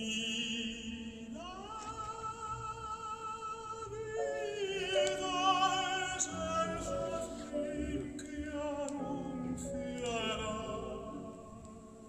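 Recorded opera singing played back over a hi-fi system: Trafomatic valve amplifiers driving Blumenhofer Classic 1733 loudspeakers. A voice holds long notes with wide vibrato, stepping from pitch to pitch, and the music grows quieter near the end.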